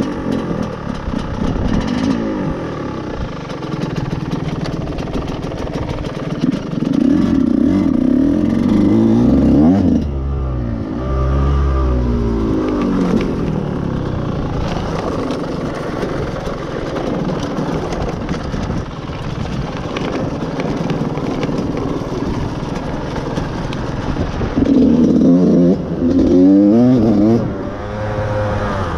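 Dirt bike engine revving up and down under load on a steep climb, the throttle opening and closing again and again, with louder pulls about a quarter of the way in and again near the end. The rider says the engine is due for a new top end.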